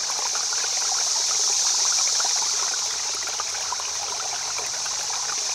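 River water running over stones: a steady rushing with many small trickling splashes.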